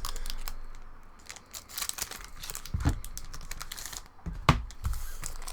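Trading cards and booster-pack wrappers being handled on a tabletop: card piles shifted, with crinkling and rustling and a few soft taps, the strongest about three and four and a half seconds in.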